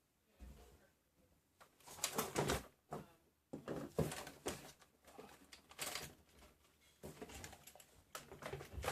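Intermittent clicks and rustles of an RC car and its steering servo being handled by hand.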